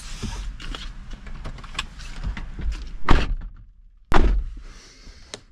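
Handling and movement noises, then a car door shut with a single loud thud about four seconds in.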